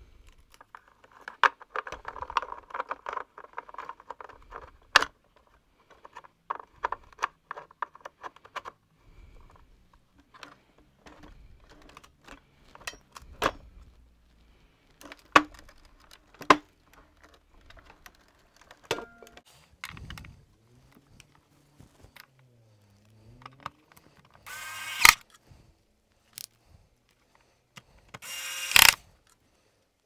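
Clicks, knocks and rattles of plastic parts being handled and fitted on the stripped base of a Hoover Junior upright vacuum cleaner. A stretch of continuous rattling comes in the first several seconds, and two short, louder bursts come near the end.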